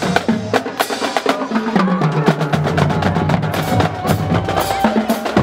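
Marching band drumline playing a cadence on snare drums and bass drums, a dense run of rapid stick strokes and drum hits.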